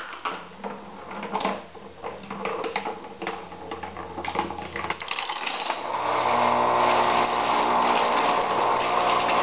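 A marble rattling down wooden craft-stick ramps, then a row of dominoes toppling with a clatter. About six seconds in, a boat bilge pump switches on and runs with a steady hum, and water gushes out and splashes into a plastic tub.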